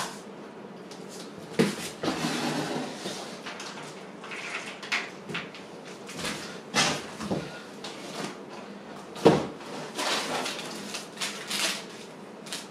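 Bicycle packaging being handled during unboxing: cardboard and wrapping rustling and scraping, broken by several knocks and bumps, the loudest about nine seconds in.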